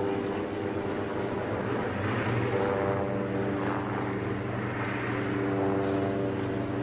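Piston engine turning a propeller, running at a steady, unchanging pitch, with a rush of air that swells and fades a couple of times.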